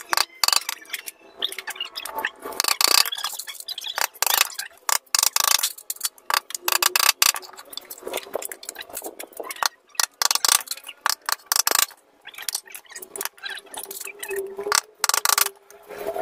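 Thin bamboo slats clicking and clattering against each other and a small wooden frame as they are laid down and shifted into line by hand, in irregular light knocks.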